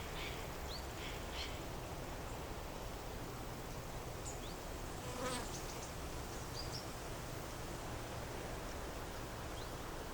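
An insect buzzing with a steady low hum over a soft outdoor hiss. A few short, high chirps are scattered through it, and there is a brief click about five seconds in.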